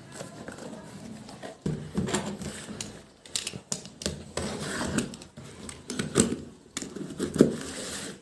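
Packaging being handled by hand: irregular clicks, taps and rustling of cardboard and plastic.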